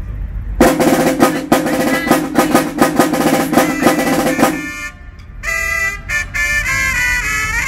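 Marching drum played in a fast roll for about four seconds. After a short pause, a brass horn plays a run of short notes.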